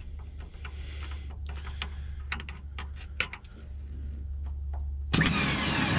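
Electrical arcing crackling and snapping as two starter-solenoid terminals on a 1957 Autocar truck are shorted together. About five seconds in, the 24-volt starter motor suddenly spins up with a rising whine, spinning without engaging the flywheel for lack of current.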